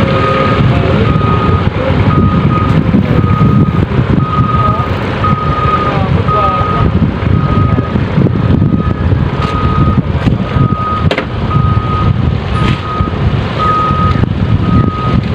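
Vehicle reversing alarm beeping steadily, a single high beep about twice a second, over a loud low rumble.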